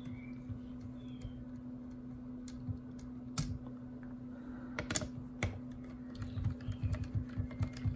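Scattered small clicks and taps as screws are turned out of a V2 airsoft gearbox shell with a Phillips screwdriver and set down on the work mat, with softer handling knocks near the end, over a faint steady hum.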